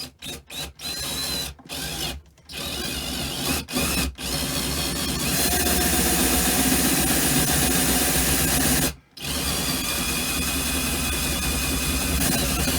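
Power drill with a 28 mm bit boring a hole through a caravan's wall panel. It starts with several short trigger bursts, then runs steadily, stops briefly about nine seconds in, and starts again.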